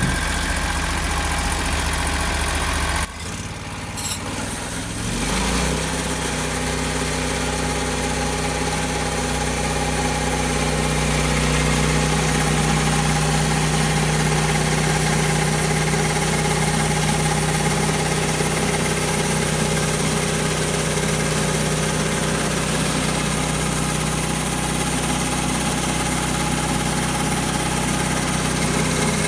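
Engine of a Norwood HD36 portable bandsaw mill running steadily. A short break comes about three seconds in, then it picks up to a higher steady speed.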